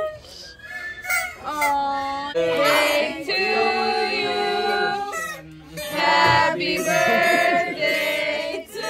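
A group of people singing a birthday song together, unaccompanied, in long held notes.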